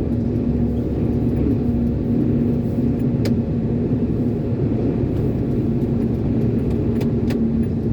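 Diesel engine of an Iveco concrete mixer lorry running steadily on the move, heard from inside the cab with road rumble. A few light clicks come through, near the middle and near the end.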